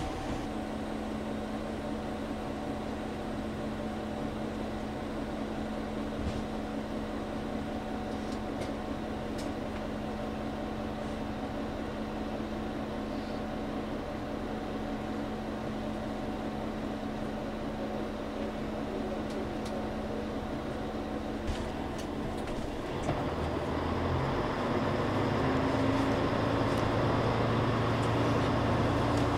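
Inside a KTR8000 diesel railcar standing at a platform with its engine idling in a steady hum. About 23 seconds in the engine revs up and the sound grows louder as the train pulls away.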